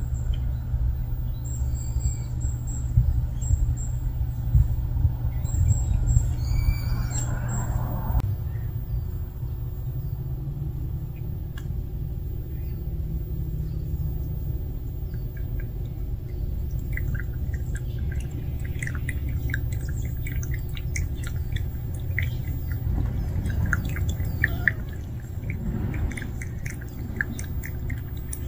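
Cats drinking and eating: quick small clicks of a cat lapping water and crunching dry kibble, starting about halfway in, over a steady low rumble. A brief high call sounds about seven seconds in.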